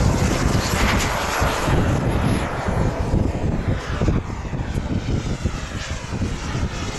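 Radio-controlled T-45 Goshawk model jet flying past: a steady rushing jet-engine noise with a thin high whine that fades about three seconds in as the model climbs away.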